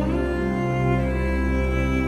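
Background music of sustained, held chords, with a slide into a new chord at the start and another chord change about a second in.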